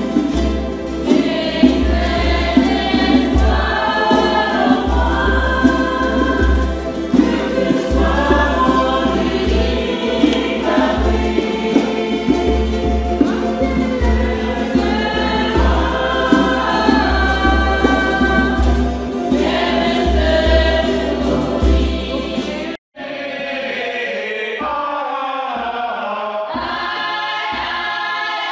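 Polynesian church congregation singing a hymn together, accompanied by strummed acoustic guitars and ukuleles, with a pulsing bass underneath. About 23 seconds in the singing breaks off abruptly and cuts to another stretch of the choir singing.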